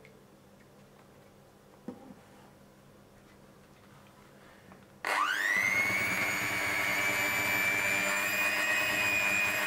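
Electric hand mixer switched on about halfway through. Its motor whines up in pitch and then runs steadily as the beaters whip cream into melted chocolate in a saucepan. Before it starts, a light knock about two seconds in.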